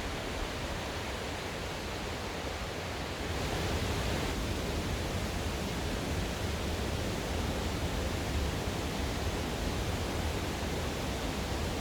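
Steady rush of flowing water from a mountain stream's rapids and falls, getting a little louder about three seconds in.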